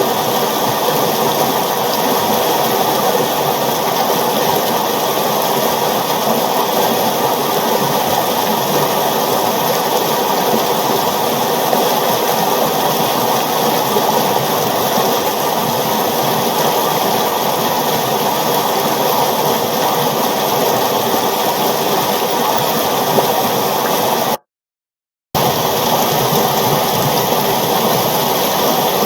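River water flowing with a steady rushing sound. It cuts out completely for under a second about 24 seconds in, then resumes unchanged.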